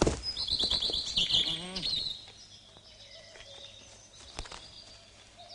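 Birds chirping in a quick run of high, slightly falling chirps, which die away after about two seconds. A single sharp click comes near the end.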